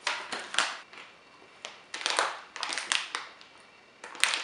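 Clear plastic snack bag crinkling in short bursts as it is picked up and handled, with a sharp click near the end.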